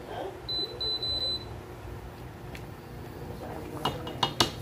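A wooden spoon stirring food in a stainless steel pan, knocking sharply against the pan a few times near the end. Early on, a kitchen appliance gives three short electronic beeps in quick succession.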